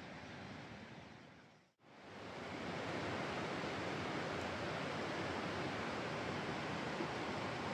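Steady rush of a mountain stream's flowing water. It fades out briefly a little under two seconds in, then returns louder and holds steady.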